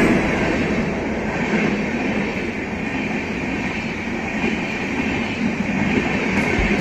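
Tejas Express coaches rolling past on the rails, a steady rumble and rush of wheels on track.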